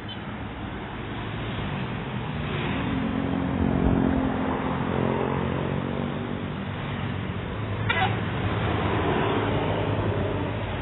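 Bus telolet horn sounding a wavering multi-note tune, over a steady rumble of background noise, with a short click about eight seconds in.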